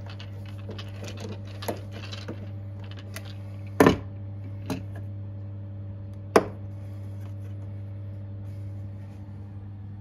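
Handling and screwdriver work on a small plastic magnetic limit-switch sensor on a roof rail: a few sharp clicks and knocks, the loudest about four seconds in and another about six seconds in, over a steady low hum.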